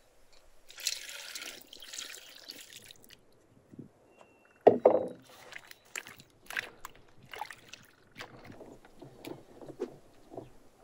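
Milk poured from a wooden bowl into a steel bowl, a steady splashing pour lasting about two seconds. Then hands squish and mix the wet grated mixture in the bowl: one loud squelch, followed by a run of shorter wet squelches.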